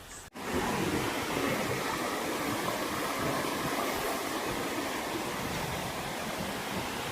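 Steady rushing of a waterfall's falling water. It starts abruptly after a short break in the sound about a third of a second in, then holds even.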